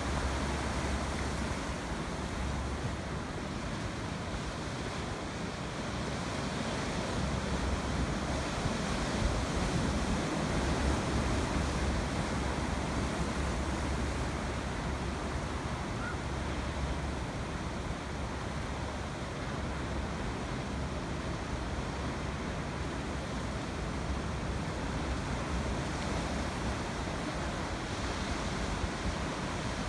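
Sea surf breaking over rocky reefs and washing against a harbour wall: a continuous, even roar of waves, with wind buffeting the microphone as a low rumble that comes and goes.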